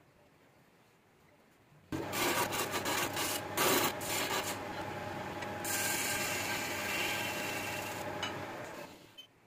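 A turning chisel cutting jackfruit wood spinning on a lathe: a steady rasping scrape with shavings coming off. It starts suddenly about two seconds in, turns brighter and hissier past the middle, and stops shortly before the end.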